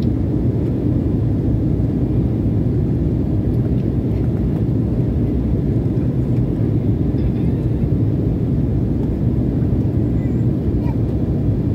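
Steady low rumble and rush of a jet airliner's engines and airflow, heard inside the passenger cabin while descending through cloud.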